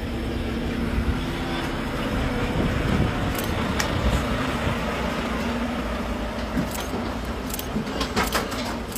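A semi-trailer livestock truck drives past close by, its diesel engine running with a steady low drone and rumble. A few sharp clicks come near the end.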